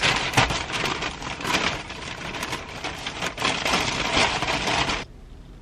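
Paper shopping bag rustling and crinkling as a hand rummages through it, a dense run of crackles that stops suddenly about five seconds in.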